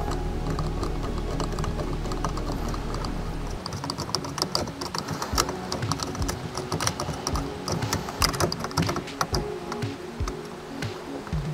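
Door knob mounting screws being tightened with a screwdriver: irregular small clicks and ticks, coming thicker after the first few seconds. Background music plays under it.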